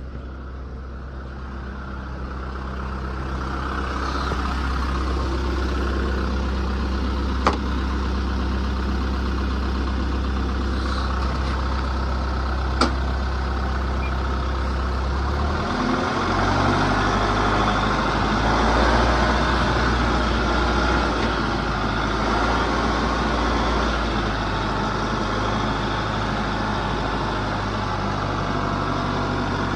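A vehicle's engine runs steadily while being driven, growing louder over the first few seconds and changing pitch about halfway through. Two sharp clicks stand out, about 7 and 13 seconds in.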